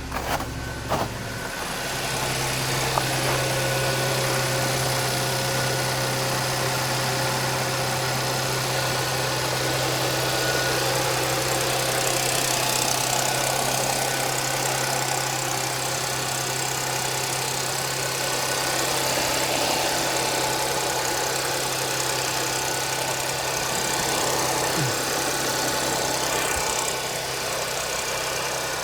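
Audi 3.0 TFSI supercharged V6 just after a cold start: a few sharp clicks in the first second as it catches, then it settles about two seconds in into a steady, even idle. The owner suspects a timing chain rattle at cold start, though he isn't sure.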